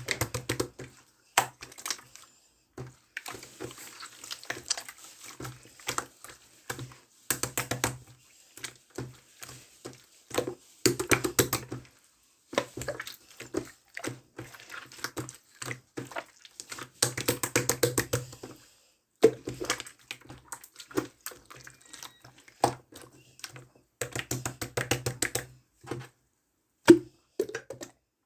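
Clear slime being squished and pressed by hand, giving bursts of rapid sticky clicks and pops with short pauses between handfuls.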